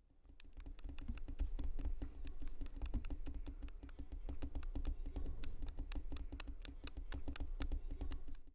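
A quick, irregular patter of many small clicks and taps over a low rumble.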